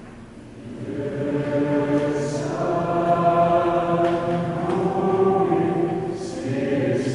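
Mixed choir singing held chords, entering softly about a second in, with sung 's' consonants hissing twice.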